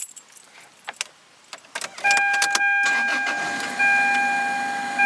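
Toyota Celica engine started up and running, being tested after its spark plugs were re-gapped to cure a hesitation, with a loud steady high-pitched tone that starts about two seconds in and breaks off and resumes twice. A few light clicks come first.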